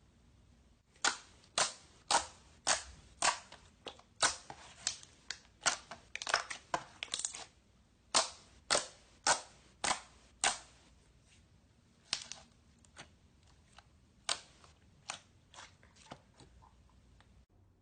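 Slime being pressed and poked, giving off a series of sharp popping clicks as trapped air bursts, roughly two a second, loud at first and fainter in the last few seconds.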